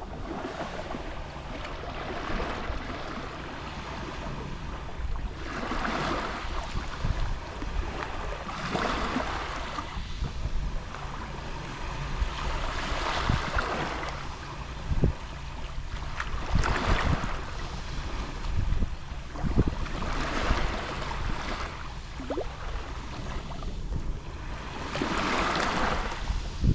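Small Mediterranean waves lapping on the shore, each wash swelling and fading about every three to four seconds, over a low wind rumble on the microphone.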